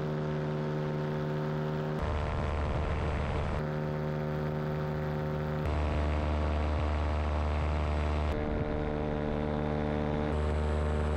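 Paramotor engine and propeller running steadily in flight, a constant drone. Its pitch and tone jump abruptly every couple of seconds where the footage cuts between shots.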